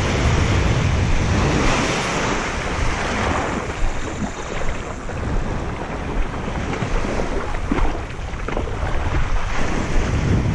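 Small surf waves washing up onto the beach at the water's edge, with wind buffeting the microphone.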